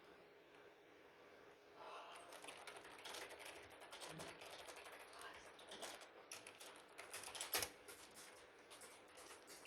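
Faint, irregular small clicks and rustling, like objects or packaging being handled, starting about two seconds in, with one sharper, louder click about seven and a half seconds in.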